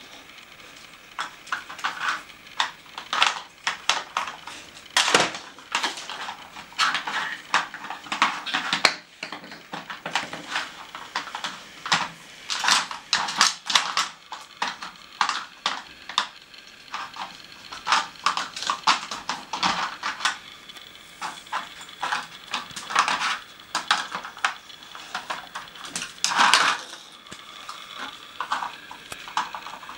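A dog working a plastic Nina Ottosson treat puzzle on a hard floor, with irregular clattering and knocking of the plastic cones and board as it noses pieces out and moves them about.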